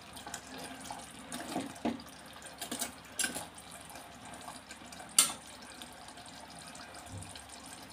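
Thick curry bubbling in a hot clay pot: a steady watery hiss with a few sharp pops, the loudest about five seconds in.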